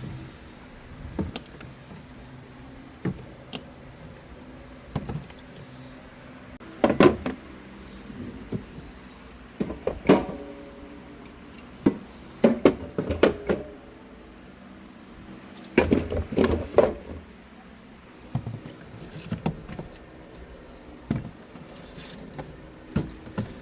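Groceries being put away in a fridge: scattered knocks, clunks and rustles of items being handled and set down, in small clusters, with a door being worked.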